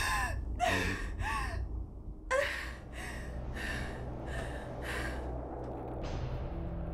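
A woman crying, with sharp gasping sobs: two about a second in, then a run of about five quick gasping breaths, each roughly half a second apart.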